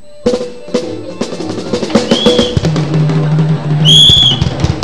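Drum-led dance music with a steady beat, over which a police whistle is blown in short high blasts: a faint one about two seconds in and a loud one near the end.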